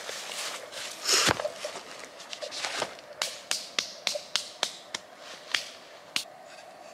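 Benchmade Leuku 202 bushcraft knife carving a softwood stick into a feather stick: one louder scrape about a second in, then a run of quick, sharp shaving strokes, roughly three a second, that stops shortly before the end.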